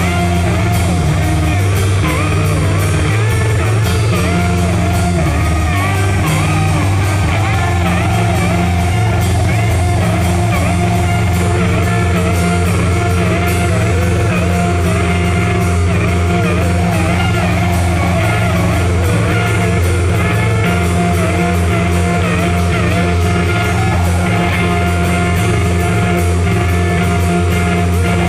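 A band playing a loud rock jam on electric guitar and drum kit, with a steady heavy low end and guitar notes that waver in pitch.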